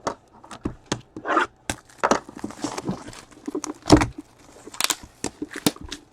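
Cardboard trading-card boxes and their packaging being handled and opened: a quick run of taps, clicks and rustles, with a louder knock about four seconds in.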